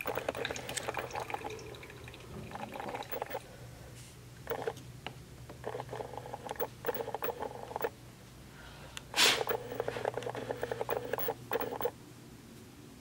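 Coffee being made: liquid pouring, gurgling and dripping in short bursts over a steady low hum, with one louder hissing spurt a little past the middle.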